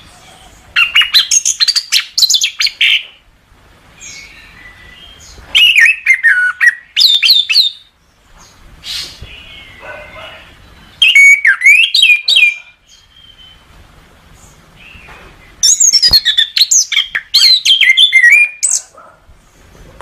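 Chestnut-capped thrush (anis kembang) singing: four loud phrases of rapid, varied whistled notes with quick sweeps up and down in pitch, each about two seconds long, with faint chirps between them.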